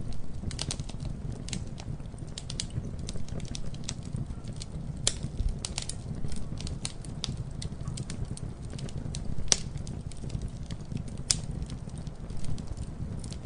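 Campfire burning with a steady low rumble of flames and irregular crackles and pops of burning wood, a few sharper pops standing out.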